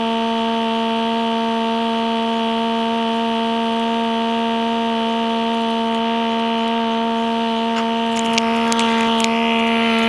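Background music: a single low synthesizer note held steadily, unchanging in pitch.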